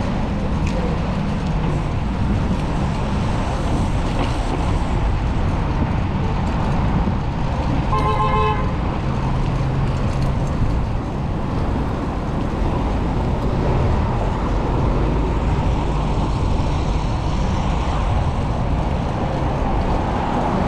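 Steady street traffic rumble heard from a moving bicycle, with one short car horn toot about eight seconds in.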